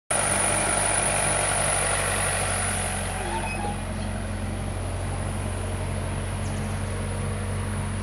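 Heavy diesel engines running steadily: an Eicher tipper truck idling close by while an Escorts backhoe loader digs and swings a load of soil. The engine noise is fuller and louder for the first few seconds, then settles, with a steady high thin whine throughout.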